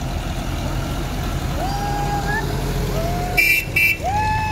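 Vintage tractor engine running with a steady low rumble as the tractor drives past. About three and a half seconds in come two short loud horn toots, and a few short wavering tones rise at their ends.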